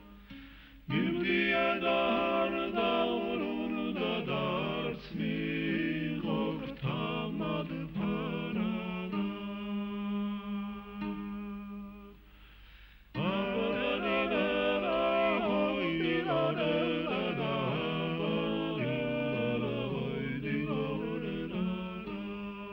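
Music of several voices singing together in harmony over a held low note. The singing breaks off briefly about twelve seconds in, then resumes.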